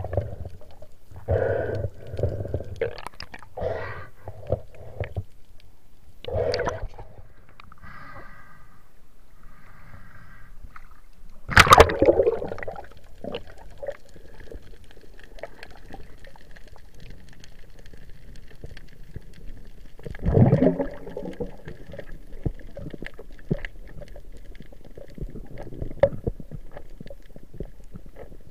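Water gurgling and sloshing around a diver's underwater camera, with scattered knocks. The water sounds come in irregular bursts for the first few seconds and then settle. A sharp click about twelve seconds in is the loudest sound, followed by a duller thump at about twenty seconds.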